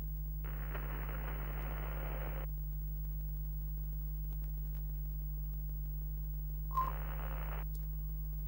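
A steady low electrical hum, with two bursts of thin, telephone-like hiss over it: one of about two seconds starting half a second in, and a shorter one near the end that opens with a sharp click.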